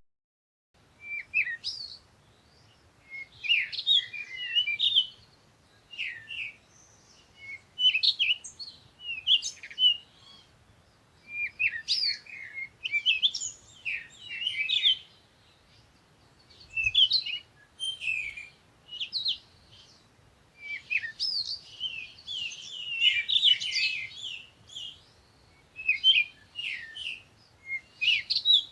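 Songbird singing: short, quick phrases of high chirps and trills, repeated every second or two with brief pauses, and a longer run of song about two-thirds of the way through.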